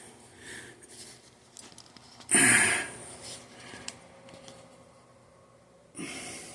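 A short, sharp sniff or breath about two seconds in and a weaker one near the end, with a few faint light clicks between them.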